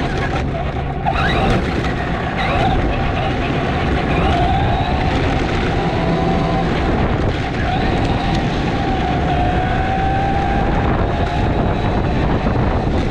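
Wind buffeting the microphone while riding an electric unicycle, with a steady motor whine that drifts slightly up and down in pitch.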